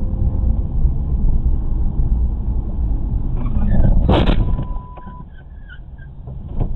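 Road and engine rumble heard from inside a car, broken about four seconds in by one sharp crash as it runs into the back of a pickup truck. After the impact the rumble drops away and a short steady beep sounds.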